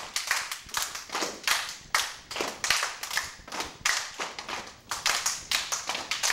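A group of children clapping together in a step-dance routine, about three claps a second in an uneven, syncopated rhythm.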